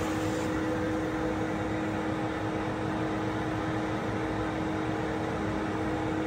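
Steady mechanical hum: an even hiss with a constant low tone, like a fan or ventilation unit running.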